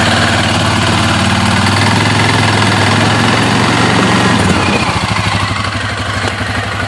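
Suzuki KingQuad 750 ATV's single-cylinder four-stroke engine idling steadily. About four and a half seconds in, the note turns into distinct, slightly uneven low pulses. The owner wonders whether the shaking belt housing at this idle means bad motor mounts.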